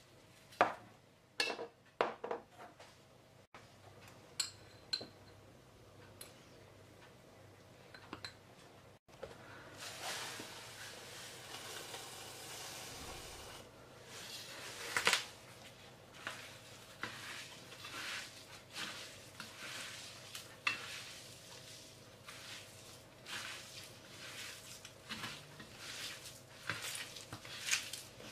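A small metal spoon clinking against a glass spice jar and a stainless steel platter a few times as seasoning is added. Later, hands mixing and kneading minced meat with breadcrumbs on the steel platter: a run of soft squishing and scraping with small clicks of fingers on the metal.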